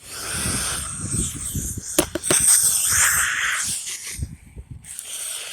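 Radio static: an uneven hiss with crackles and a few sharp clicks about two seconds in, thinning out briefly near the end.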